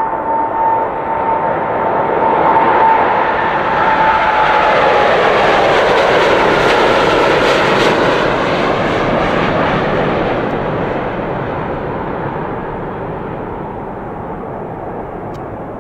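Boeing 787 Dreamliner jet airliner's engines at takeoff power as it rolls, lifts off and climbs away. A high whine at the start falls in pitch as the plane passes. The engine noise is loudest in the middle and fades slowly as the plane climbs out.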